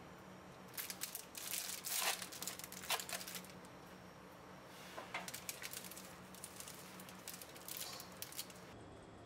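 Crisp baked phyllo crust of a spinach pie crackling and crunching, first as a knife cuts through it and again, about five seconds in, as hands break the flaky pastry apart; each stretch is a dense run of sharp crackles.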